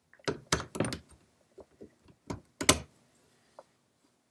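A plastic three-position lock clip and a La-Z-Boy recliner's steel footrest linkage knocking and clicking as the clip is worked back on by hand: a quick run of sharp knocks in the first second, then two more near the middle, the second of these the loudest.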